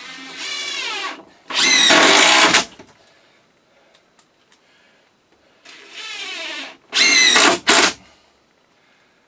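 Power drill driving screws into a 2x6 board, twice: each time a short slower run, then a loud burst at full speed with the motor's pitch rising.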